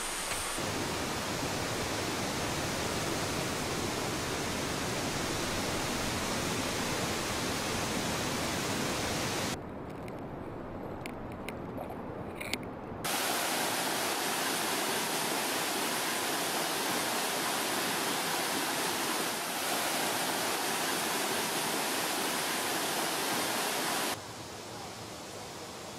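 Steady rushing noise like flowing water. It drops for a few seconds near the middle, where a few faint clicks are heard, comes back louder, then falls to a softer hiss near the end.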